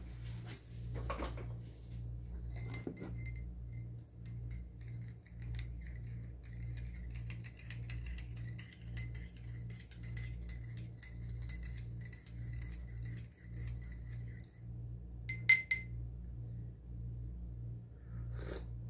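Metal spoon stirring coffee in a ceramic mug, clinking quickly and lightly against the sides for about twelve seconds, with one louder clink near the end. A steady low hum from a window air conditioner runs underneath.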